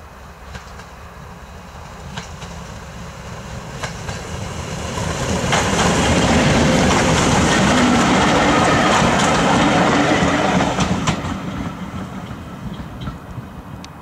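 Class 205 'Thumper' diesel-electric multiple unit passing. Its engine and wheel noise build as it approaches and are loudest for about five seconds as it goes by, with sharp clicks of wheels over rail joints. The sound then fades as it draws away.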